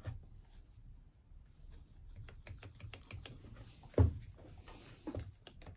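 Small plastic clicks and knocks as a reciprocating saw's housing parts are handled and fitted together, with one louder knock about four seconds in.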